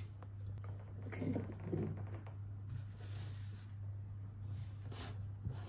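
Quiet room tone with a steady low electrical hum, a couple of faint clicks at the start as a phone in a boom-arm mount is let go, and soft rustles of body and clothing movement.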